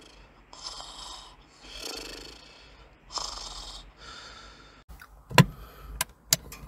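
A person snoring, three slow snores about a second and a half apart, followed near the end by a few sharp clicks and knocks.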